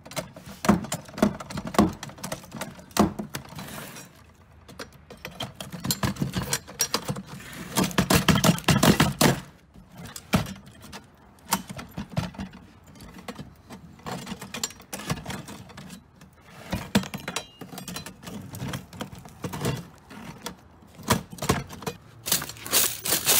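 Irregular metallic clanking, knocking and rattling from prying at a payphone's metal housing, in uneven clusters of sharp hits.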